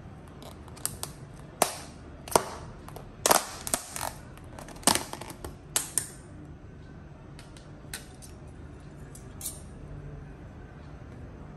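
Lid of a thin clear plastic takeaway container being unclipped and pried open: a quick run of sharp plastic snaps and crackles over the first six seconds or so, then a few lighter clicks. A low steady hum runs underneath.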